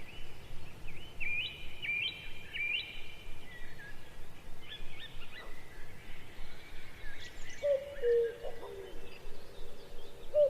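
Birds chirping in short, quickly repeated calls. A lower repeated call joins about three-quarters of the way in.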